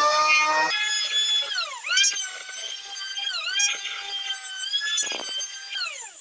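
Electric hand planer with freshly sharpened, reset blades running with a high whine as it planes a wooden block. The pitch drops briefly a few times as the blades bite into the wood, then recovers.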